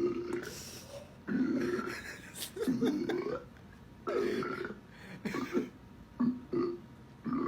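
A string of about eight loud, croaking burp-like noises from a person, the first few lasting around a second each and the later ones short and quick.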